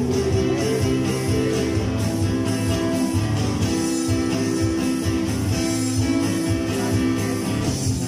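A small live band playing an instrumental passage: a strummed acoustic guitar over sustained keyboard notes, with a steady beat.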